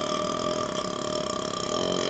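A man's long, drawn-out burp, brought up by chugging carbonated Pepsi, going on without a break.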